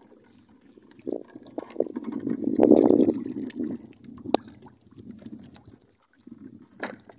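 Sea water sloshing and splashing against the side of a small outrigger fishing boat, irregular, with the loudest splash about three seconds in and a couple of sharp knocks later on.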